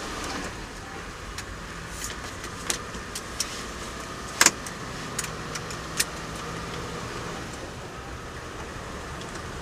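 Four-wheel-drive car driving at low speed, a steady low engine and road noise with occasional sharp knocks and rattles; the loudest knock comes about four and a half seconds in.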